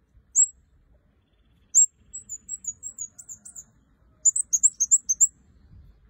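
Caged red-headed kemade (kemade kepala merah) songbird singing in high-pitched chirps: two single notes, then two runs of quick twittering notes, the second one louder.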